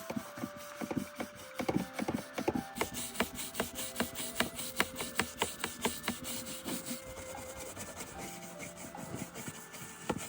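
Hand scrubbing of a small old refrigerator's dirty, mouldy surfaces and door seals, a quick back-and-forth rubbing at about three strokes a second that thins out after about seven seconds.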